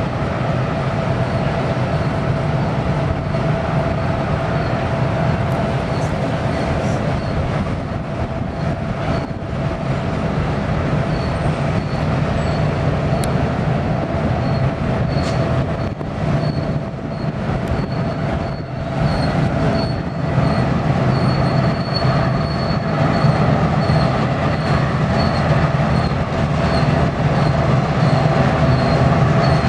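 Several EMD MP15 switcher locomotives passing slowly under load, their two-stroke diesel engines giving a heavy steady drone. A short high wheel squeal repeats about twice a second, and the sound grows a little louder near the end as the locomotives come closer.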